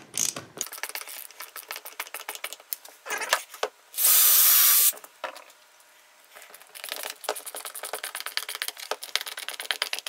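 Ratcheting hand screwdriver clicking quickly as screws are driven into MDF, in two runs with a pause between them. A little before the middle, a loud hiss lasts about a second.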